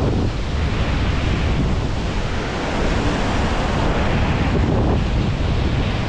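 Ocean surf breaking and washing over a rock ledge, a steady rush of water, with wind buffeting the microphone.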